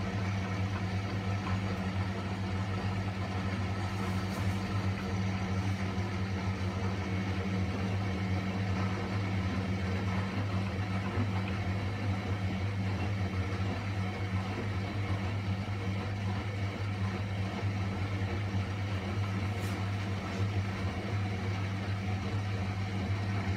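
Miele front-loading washing machine's drum motor running with a steady hum as the drum tumbles the laundry at low speed. The machine is trying to balance an off-balance load before spinning.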